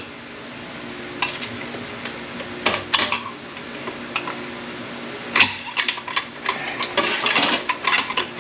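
Metal automatic-transmission parts clinking, scraping and rattling as they are worked loose and handled, in irregular clusters of clicks, busiest in the second half, over a steady low hum.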